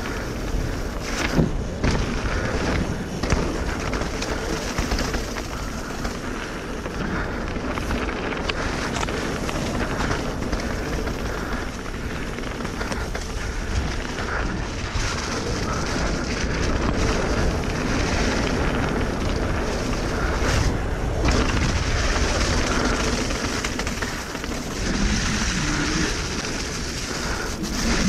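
Mountain bike descending fast on a wet, leaf-covered dirt trail: steady rushing noise from the tyres on wet leaves and soil and from wind on the camera microphone, with the bike rattling and knocking sharply over bumps.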